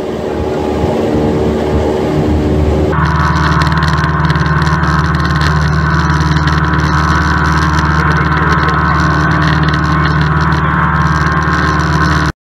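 A single-engine Cessna light aircraft's piston engine and propeller droning steadily, heard from inside the cabin. The drone shifts abruptly to a louder, steadier tone about three seconds in and cuts off suddenly just before the end.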